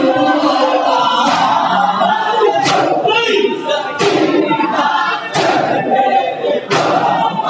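Male voices singing a noha (Urdu mourning lament) together, joined by a crowd of mourners. Through it comes the unison slap of hands beating chests in matam, a sharp stroke about every second and a half.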